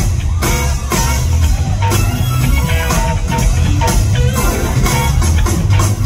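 Live funk band playing loud: electric guitar over drums and bass, with a steady beat.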